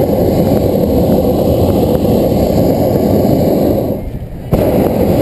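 Hot-air balloon propane burner firing, heating the envelope: a loud rushing blast that cuts off about four seconds in, then after a half-second pause fires again suddenly.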